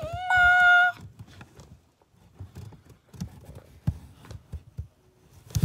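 An animal gives one drawn-out high cry of under a second, followed by scattered knocks and scrapes against a cardboard box.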